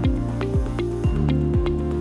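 Upbeat corporate-style background music with a steady electronic kick drum, about two beats a second, over held synth chords.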